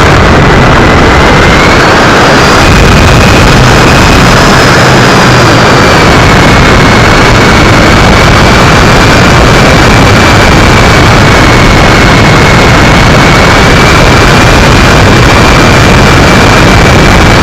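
Brushless electric motor and 11x9 propeller of an RC Cessna 182 model, heard loud from a camera on board, with heavy wind rush. A steady high motor whine dips slightly about a second in, then rises and holds.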